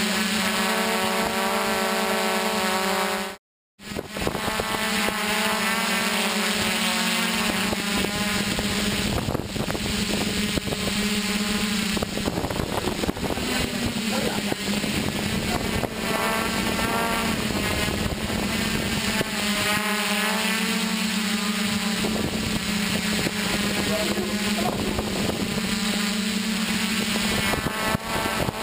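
Multirotor drone's motors and propellers humming steadily, the pitch wavering slightly as the motors adjust; the sound cuts out for a moment about three seconds in.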